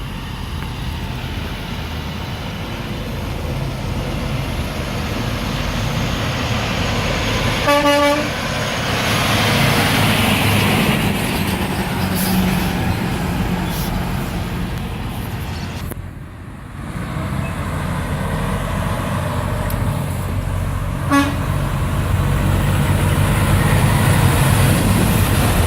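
Heavy trucks passing on a highway, a steady rumble of engines and tyres with one vehicle rushing past. A truck horn gives a short toot about eight seconds in and a briefer, fainter one about twenty-one seconds in.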